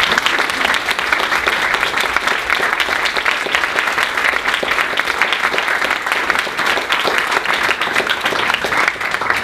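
Audience applauding: many hands clapping steadily at the end of a talk.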